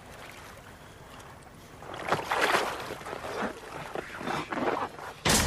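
Seawater splashing and sloshing as a man's body is hauled out of the water onto an inflatable rubber life raft, starting about two seconds in. A sudden loud hit comes right at the end as music begins.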